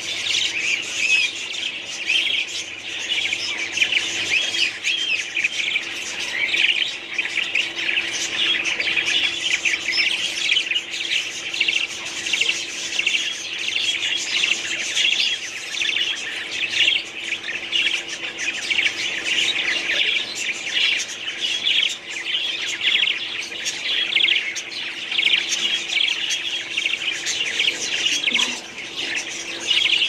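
A flock of budgerigars chattering without a break: many quick chirps and squawks overlapping at once.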